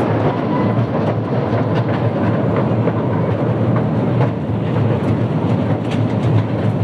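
Miniature joy-ride train running, heard from aboard its open coaches: a steady rumble of wheels on the narrow track with scattered clicks as they pass over rail joints.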